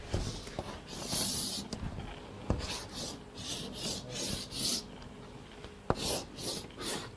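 Chalk scraping across a blackboard as a figure is drawn: one longer stroke about a second in, then a run of short quick strokes, with two sharp taps of the chalk on the board.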